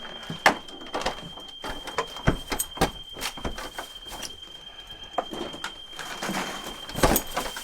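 Irregular knocks, taps and clatter of people moving about and handling things during a house search, louder near the end, over a steady high-pitched tone.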